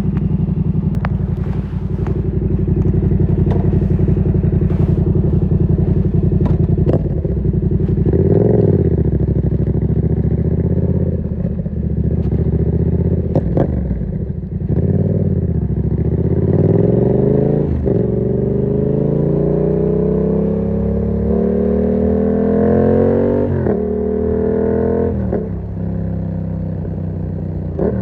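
2019 Yamaha MT-07's parallel-twin engine through an SC-Project aftermarket exhaust with the dB killer fitted, running steadily at low revs, then pulling away: the revs climb and drop sharply several times as it shifts up through the gears.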